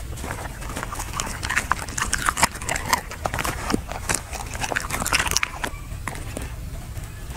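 A dog chewing and crunching food with its mouth near the microphone: irregular crunches, clicks and wet smacks, busiest through the middle seconds.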